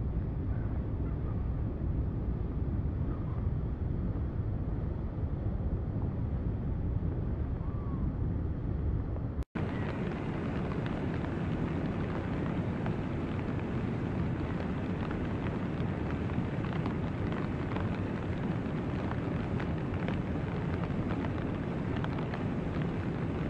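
Steady outdoor noise by a river during the spring ice drift, mostly a low rumble like wind on the microphone, with a few faint high chirps in the first half. About nine seconds in the sound drops out for a moment, and a brighter, hissing noise follows.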